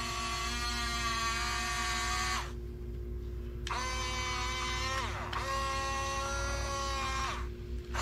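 Huina 1569 radio-controlled bulldozer's electric drive motors whining as it pushes a pile of leaves and mulch. The whine stops about two and a half seconds in and starts again a second later with a rising pitch. It dips and climbs once more past five seconds, then cuts out briefly near the end.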